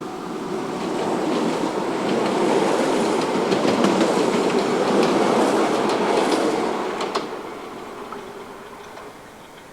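Keihan 800 series train passing, its wheels clicking over the rail joints. It builds to its loudest a few seconds in, then fades away.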